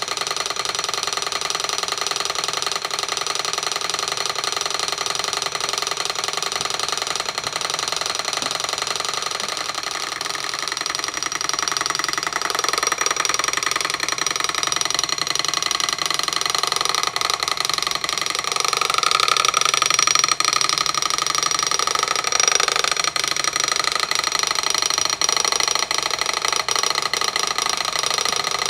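Miniature Ringbom-type Stirling engine running, its freely floating displacer tapping rapidly in its cylinder along with the running mechanism. The tapping runs as a fast, even clatter, then about twelve seconds in grows louder and its pattern shifts, the kind of variation that comes when the engine speeds up past what the displacer can keep up with and it skips beats.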